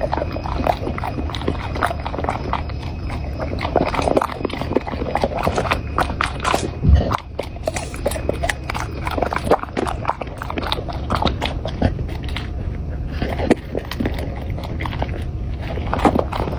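Steady chewing and biting: dense, irregular crunching clicks, with one louder thump about seven seconds in.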